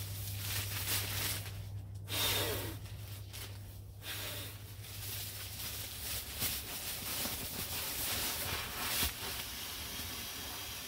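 Nylon pump bag being squeezed to push air into an Exped sleeping mat: fabric rustling and crinkling over a steady hiss of rushing air.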